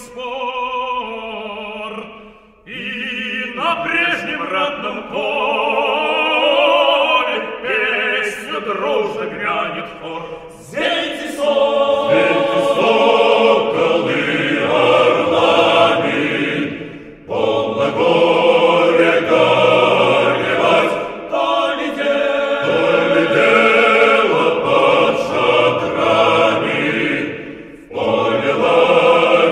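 A choir singing in long held phrases, with brief breaks between phrases about 2.5, 10.5, 17 and 28 seconds in.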